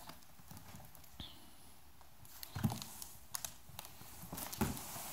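Large cardboard box handled and turned by hand, giving a few light knocks, taps and scuffs in the second half.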